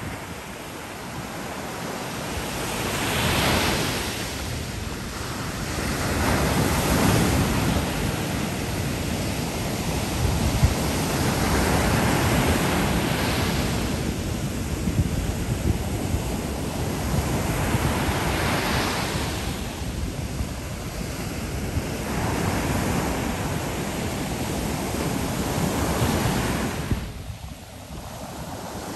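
Ocean surf breaking and washing up a sandy beach, the rush of water swelling and ebbing every few seconds, with a brief lull near the end.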